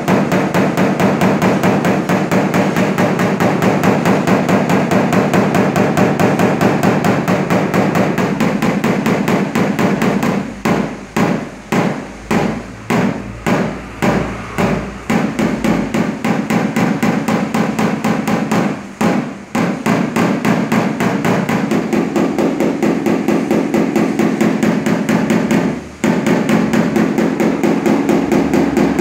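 Paintless dent repair hammer tapping rapidly on a car's sheet-metal roof, several light strikes a second, knocking down high spots around the dent. For a few seconds in the middle the taps slow to about two a second, and there are short breaks later on.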